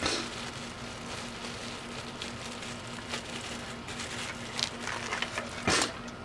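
Light clicks and scrapes of hand tools on metal, with one louder scrape just before the end, over a faint steady hum.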